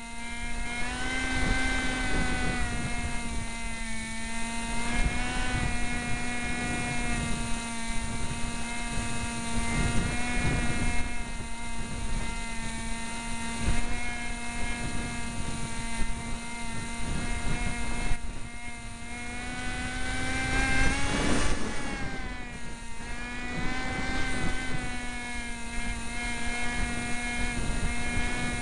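Electric motor and propeller of a Cox SkyCruiser RC plane whining steadily at near full power, heard from a camera mounted on the plane, with wind buffeting the microphone. The pitch wavers slightly and swells up and back down about three quarters of the way through.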